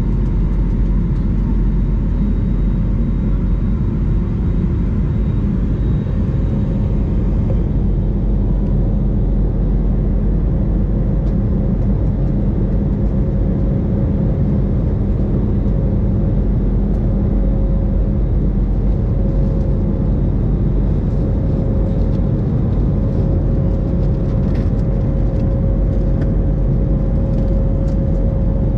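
Cabin noise of an IndiGo Airbus A320-family jet climbing after takeoff: its turbofan engines running as a loud, steady low rumble with a steady hum on top, heard from inside the cabin.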